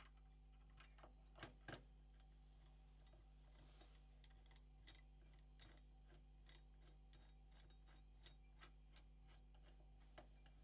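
Faint, irregular light clicks and ticks of a screwdriver tightening the screws of a PS4 Pro's heatsink clamp, over a steady low electrical hum.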